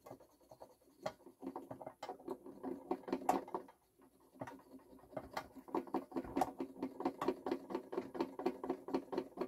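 Cotton swab wet with DeoxIT scrubbing inside a turntable tonearm's corroded aluminium headshell collar, working the corrosion loose. It makes rapid short rubbing strokes, several a second, that pause briefly about four seconds in.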